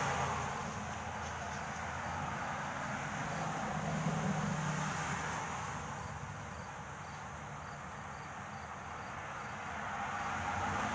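Faint insect chirping, small regular chirps about three a second, over a low steady rumble.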